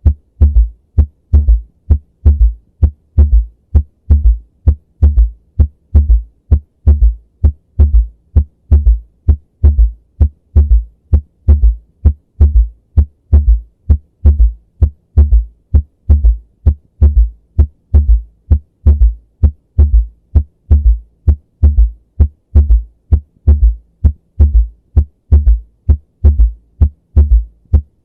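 Heart sounds heard through a stethoscope with a third heart sound (S3): a steady rhythm of short low thuds repeating several times a second. The extra sound comes in early diastole after the second sound, a ventricular gallop caused by blood oscillating in the ventricles as they fill rapidly from the atria.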